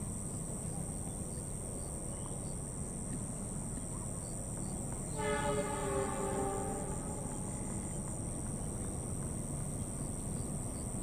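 Diesel locomotive horn sounding one blast of about two seconds, about five seconds in, from the approaching train, over a steady low rumble.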